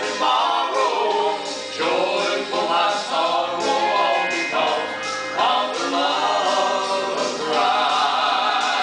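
Southern gospel vocal group singing a song, several voices together.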